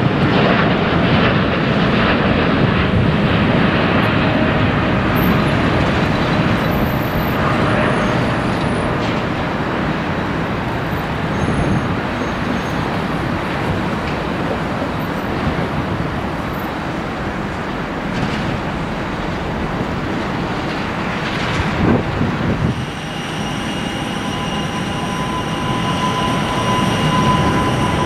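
Jet engine roar of a Boeing 787-9 climbing out after takeoff, fading slowly as it draws away. About three-quarters of the way through it gives way to the engines of a climbing Boeing 777-200ER, rising again with steady high tones on top.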